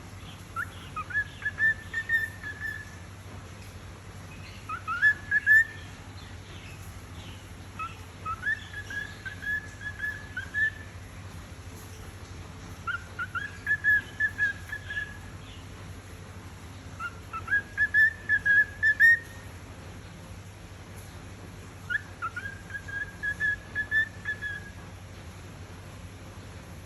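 Cockatiel whistling the same short phrase six times, a few seconds apart: each phrase slides up, then holds as a quick run of broken notes. It is the bird's attempt at a learned tune.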